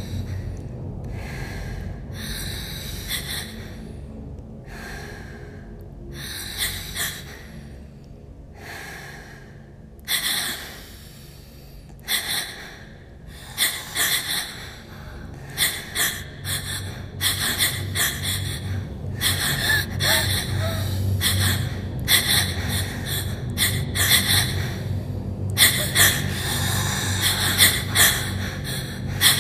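Heavy, audible human breathing: sharp gasping breaths in and out, spaced about a second apart at first, then coming quicker and almost without pause in the second half. A low steady hum runs underneath.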